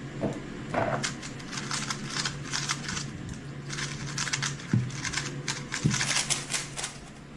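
Rapid plastic clicking of a 3x3 speedcube being turned, in quick clusters with uneven gaps, including a couple of sharper knocks; the stop-start turning fits a solve with pauses and lockups in the F2L. A faint low hum runs underneath.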